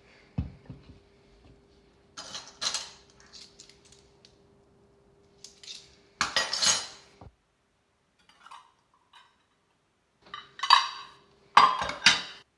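Dishes and utensils clattering and clinking in several short bursts, over a faint steady hum.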